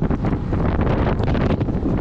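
Strong wind buffeting the microphone: a loud, continuous rumble with uneven gusts.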